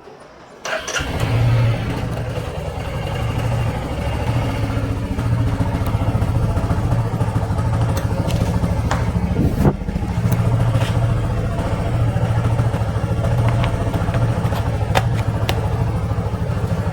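Motorcycle engine started on the starter about a second in, then idling steadily with an even low pulse.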